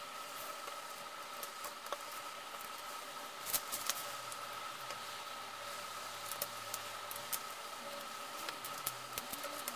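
Plastic Lego bricks being handled and pressed together on a tabletop: scattered light clicks and rattles, with a quick cluster of sharper clicks about three and a half seconds in. A faint steady high hum runs underneath.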